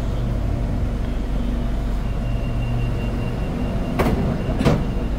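Bombardier MOVIA 456 metro train heard from inside the passenger car as it runs: a steady low rumble, with a thin steady high whine from about two seconds in. Two sharp knocks come about four seconds in and again half a second later.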